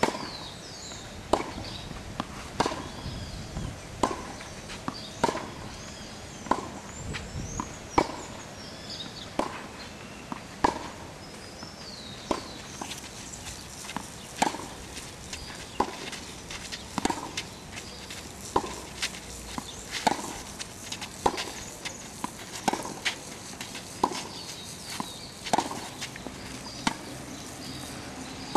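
Tennis balls being hit back and forth in a baseline rally: a sharp racket-on-ball pock about every second and a quarter, steady in rhythm throughout.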